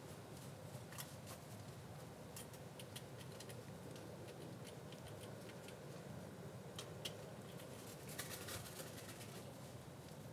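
Faint scattered clicks and taps of a crow and a magpie pecking at food on a snowy railing, with a quick run of taps about eight seconds in. A low steady rumble runs underneath.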